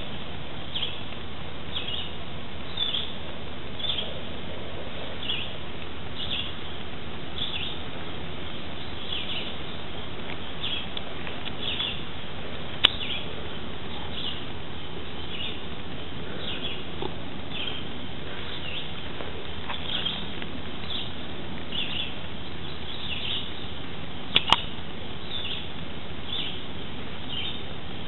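A bird chirping over and over, short falling chirps about once or twice a second, over a steady hiss of outdoor ambience. Two sharp clicks stand out, one about halfway through and a quick double one near the end.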